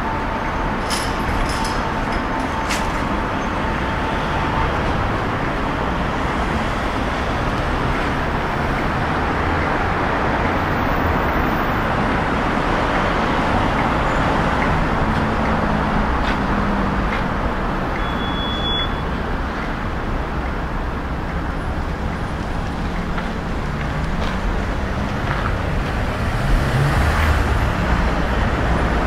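Steady road traffic noise from a busy city street, with cars passing, growing a little louder near the end.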